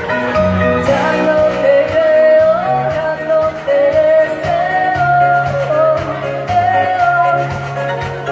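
A woman singing a pop song into a microphone over a backing track with a steady bass line, amplified through PA speakers; the sung melody holds long notes and slides between them.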